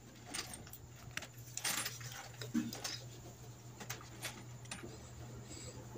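Faint scattered clicks and light metallic taps from hands and tools working at a gearbox casing, over a steady low hum.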